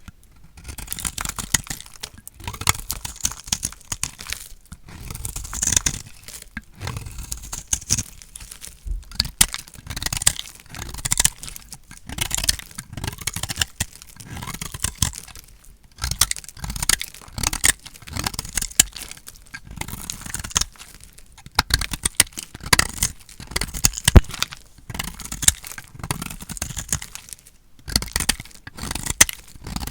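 Dry, painted bar soap being cut with a blade: crisp crunching and crackling as it breaks apart, coming in repeated bursts every second or two.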